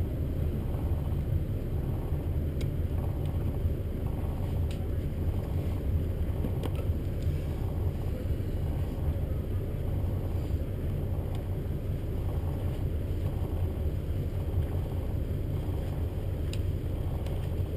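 A boat's inboard engines idling, a steady low rumble with a few faint clicks over it.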